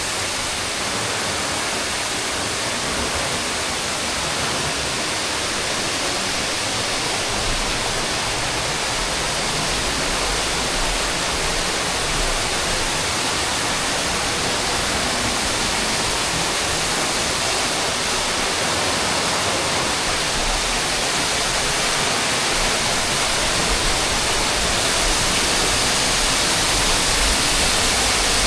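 Lower Kalimna Falls: the cascade's water rushing, loud and steady, growing a little louder near the end.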